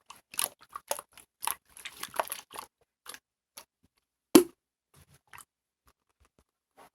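Blue mixed slime being squished and pressed by hand, giving a run of short wet clicks and pops. A single louder pop comes about four and a half seconds in, then only a few faint clicks.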